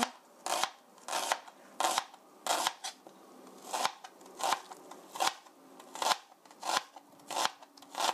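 Chef's knife mincing onion on a plastic cutting board: a steady series of sharp chops, about one to two a second.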